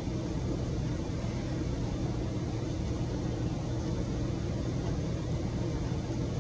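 Steady low background rumble with no distinct events, a constant hum with most of its weight in the low range.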